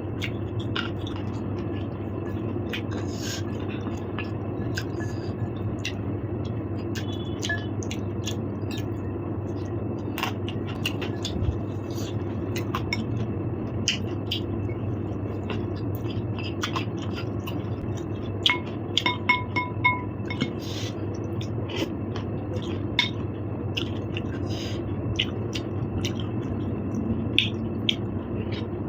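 Eating at a table: a spoon clinking and scraping against a plate or bowl in many short sharp clicks over a steady low background hum. A brief run of four or five high pips comes about two-thirds of the way through.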